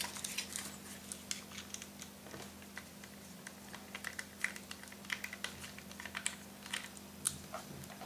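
Small screwdriver backing screws out of a laptop hard drive's metal caddy: many faint, irregular light clicks and scrapes of metal on metal as the drive is handled.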